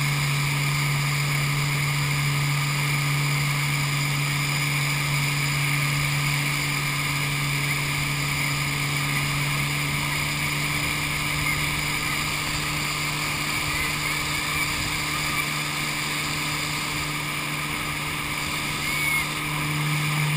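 Motorboat engine running steadily at speed while towing, with the rush of the wake and spray. It holds one even drone throughout, dipping slightly in level near the end.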